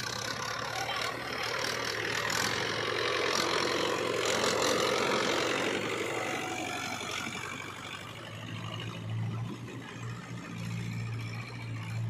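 Diesel engine of a Mahindra 475 DI tractor pulling a loaded trolley. It grows loudest as the tractor passes close, about four to five seconds in, then settles to a steady low hum as it drives away.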